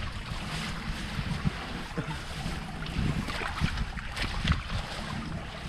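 Wind buffeting the microphone with a steady low rumble, and scattered rustles and knocks of the fishing net being handled in the boat, mostly from about three seconds in.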